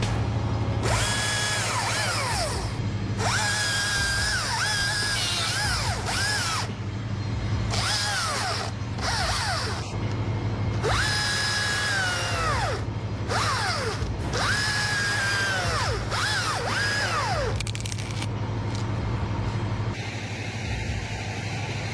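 Chainsaw revving in repeated bursts of a second or two, each holding a high pitch and then falling away as the throttle is released, over a steady low hum.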